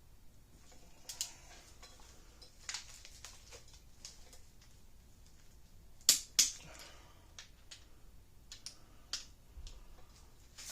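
Sharp metallic clicks and clinks of a click-type torque wrench and socket working the ARP head-stud nuts, with two loud clicks close together about six seconds in. This is the wrench breaking over as the nuts reach the 90 ft-lb final torque.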